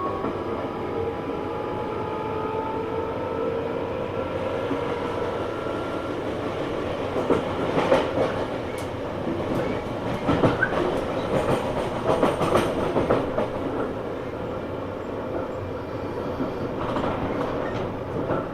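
Running sound heard aboard a Tobu 9000 series electric train with armature chopper control. A motor whine rises slightly in pitch over the first few seconds, then wheels clatter over rail joints in the middle stretch, over steady running noise. The motor note is unusual for this series; the uploader believes car 9206 was fitted with different motors, perhaps for a test.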